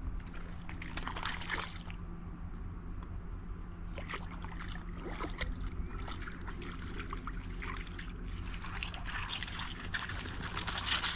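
Shallow creek water trickling and splashing close by, in three spells of splashy noise over a steady low hum.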